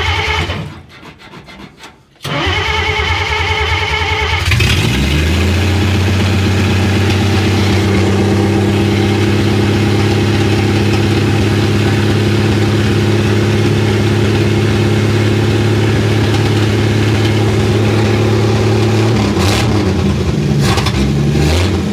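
Willys FC-170's old flathead six stumbling and dying about a second in, then cranked again and catching around four seconds in, running steadily at a raised speed with an exhaust leak. Its pitch changes near the end.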